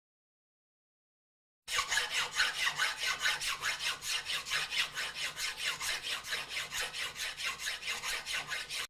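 Hand saw cutting wood in fast, even back-and-forth strokes, about four a second, starting after a short silence.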